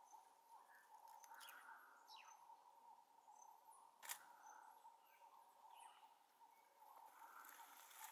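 Near silence: faint bush ambience with a steady faint tone, a few short falling chirps, and a sharp click about four seconds in from the handheld camera being handled.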